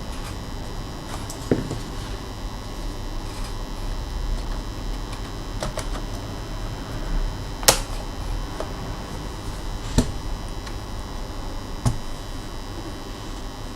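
Occasional sharp clicks and taps, about five in all, from hands working on a laptop's plastic case and parts, over a steady hum.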